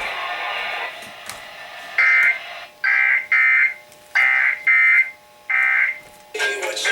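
Emergency Alert System SAME data bursts: short, buzzy, warbling digital tones around 2 kHz, six bursts in quick succession about two seconds in, coming through a broadcast receiver. They are the coded header that opens a monthly EAS test. Program audio fades out just before the bursts begin.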